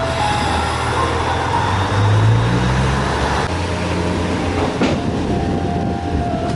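A train running on the rails: a steady rumble with a low hum that swells about two seconds in, and a single sharp knock about five seconds in.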